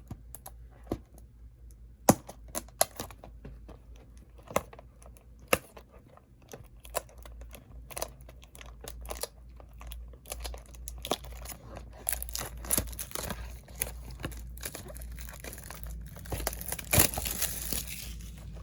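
Hands unwrapping and opening a cardboard trading-card blaster box: scattered taps and clicks, then from about twelve seconds in a long stretch of crinkling and tearing of plastic wrap and card packs.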